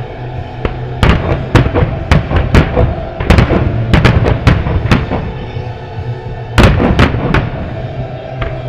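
Aerial fireworks shells bursting in a rapid barrage: many sharp bangs in quick succession for about four seconds, then a second cluster of bangs just past the middle, over steady music.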